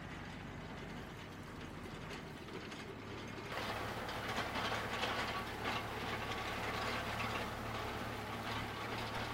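Ursus C-392 tractor's diesel engine running steadily as it pulls a Strumyk disc harrow, faint at first, then about three and a half seconds in heard up close and louder, with the harrow's discs and frame rattling and clattering as they cut through the stubble.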